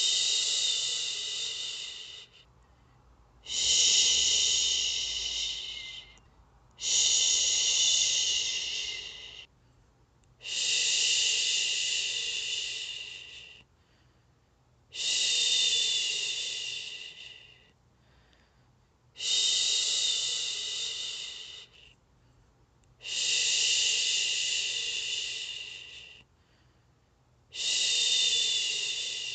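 A woman shushing, a long 'shhh' repeated eight times, each two to three seconds long, starting sharply and fading off, with a short pause for breath between. It is a soothing shush to settle a baby to sleep.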